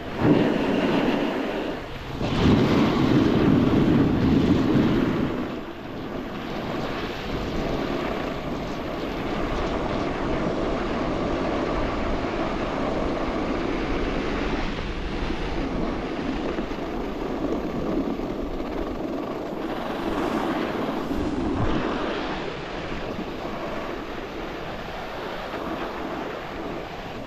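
Snowboard sliding down a groomed run: a steady rushing scrape of the board on the snow. It is louder for a few seconds near the start, then runs evenly.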